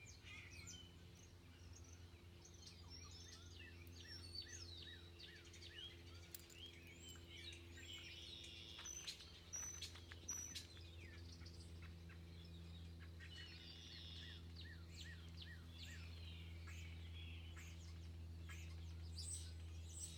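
Faint chorus of small birds chirping and singing: many short, quick calls overlapping one another, over a steady low hum.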